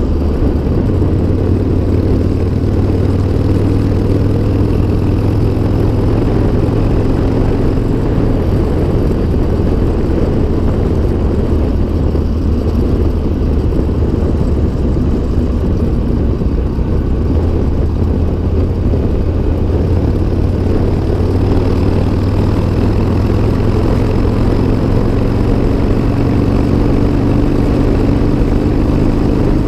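1996 Harley-Davidson Sportster XL 1200 Custom's air-cooled V-twin engine running steadily at road speed, its pitch climbing slowly over the first several seconds and again over the last third as the bike gently speeds up.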